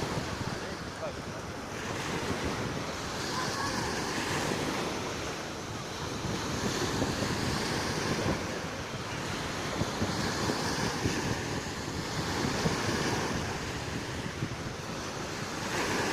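Black Sea surf washing onto the shore, swelling and easing every few seconds, with wind buffeting the microphone.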